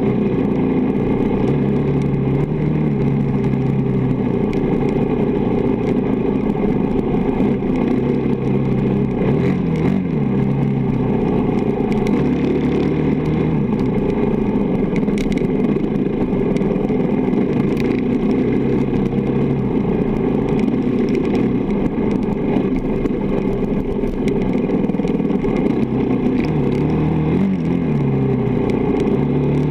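Honda dirt bike engine running hard on a desert trail, heard from a camera mounted on the moving bike; the revs rise and fall again and again with throttle and gear changes.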